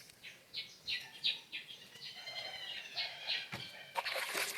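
A bird chirping: a run of short high chirps, then a longer arching call about two seconds in, then more chirps. A brief low knock comes near the end.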